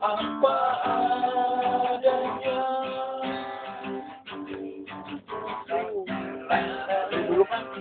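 Acoustic guitar strummed, with a voice singing along in held notes that glide in pitch.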